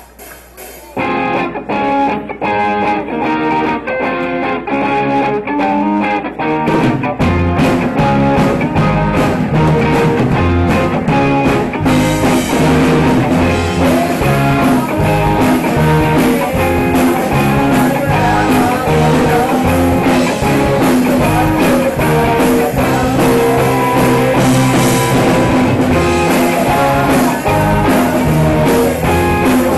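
A live student rock band playing a song with guitars, bass and drum kit. A guitar starts about a second in, the bass and drums come in around seven seconds, and the full band is playing from about twelve seconds.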